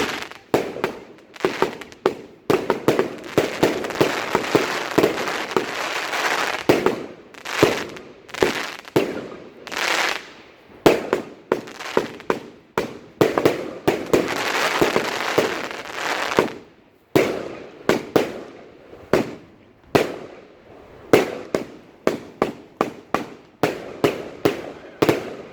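Evolution Fireworks 'Visions Of Ecstacy' 120-shot fireworks cake firing: a rapid string of launches and bursts, often several a second, with two long stretches of dense crackling.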